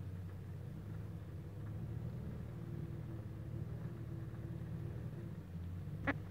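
Engine running with a steady low rumble, joined near the end by one short, sharp high-pitched sound.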